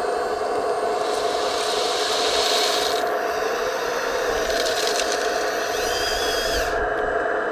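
Steady whine of an RC scale construction model's hydraulic pump. A hiss comes about a second in, followed by scraping and clicking of the machine at work and a short high motor whine near the end.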